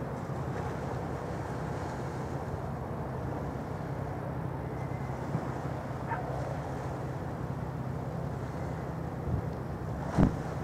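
Steady low engine rumble over outdoor background noise, with a sharp knock near the end.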